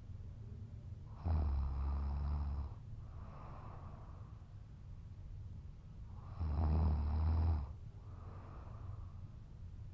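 Heavy snoring from a sleeper passed out drunk: two loud, low snores about five seconds apart, each lasting over a second, with quieter breaths between them.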